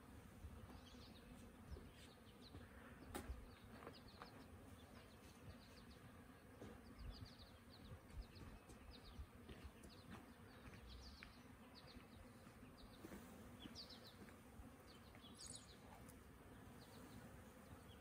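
Faint steady buzzing of a swarm of honey bees being brushed off firewood into a hive box, with short high bird chirps scattered throughout and a single sharp click about three seconds in.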